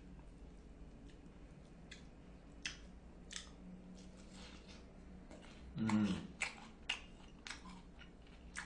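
A man eating a pork cutlet with chopsticks: scattered light clicks of the chopsticks and dishes and chewing. A short murmur from him about six seconds in is the loudest sound.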